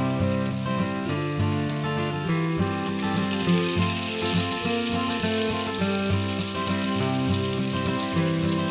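Instrumental background music over whole tilapia sizzling in hot oil in a frying pan. The sizzle grows about four seconds in, as a second fish is laid into the oil.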